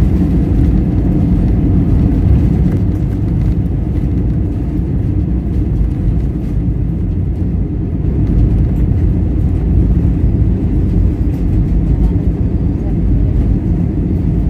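Jet airliner cabin noise on the landing roll just after touchdown, heard over the wing with the spoilers deployed: a loud, steady low rumble of engines, airflow and wheels on the runway.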